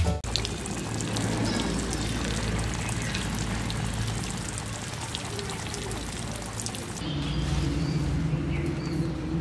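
Water spraying from a hose, a steady patter and splash of drops on leaves and ground. About seven seconds in the spray gives way to birds chirping over a low steady hum.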